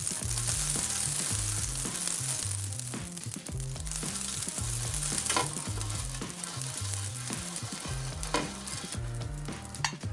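Butter and olive oil sizzling as it is brushed across a hot wide frying pan with a silicone brush, with a few sharp taps along the way; the sizzle thins out toward the end.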